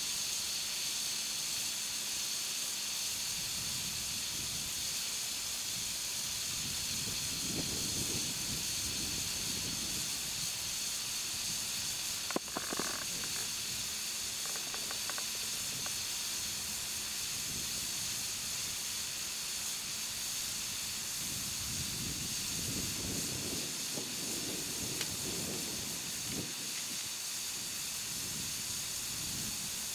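Steady hiss of air escaping from a large 20.8R38 radial tractor tire as it slowly deflates, with a single sharp click about twelve seconds in.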